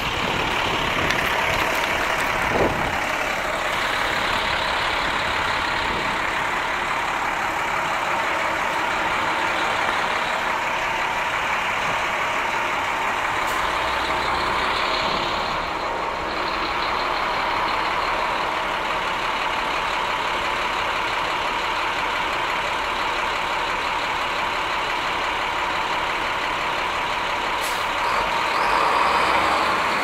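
Steady street traffic noise, a constant hiss that runs without a break, with one short knock about two and a half seconds in.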